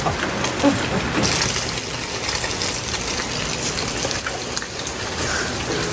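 Small river fish frying in hot oil in a pan: a steady sizzle with scattered small crackles.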